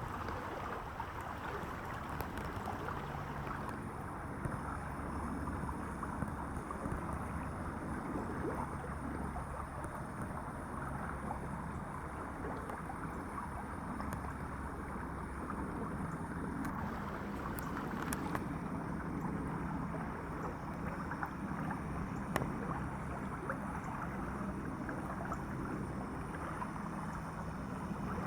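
Steady rushing outdoor background noise, with a faint low hum beneath it and a few small clicks.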